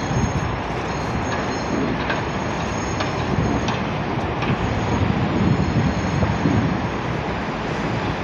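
Construction-site machinery noise: a steady low rumble with a faint high whine and a few light metallic clicks.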